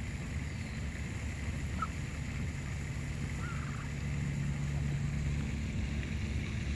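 A steady low hum with a held low tone, and faint short chirps about two and three and a half seconds in.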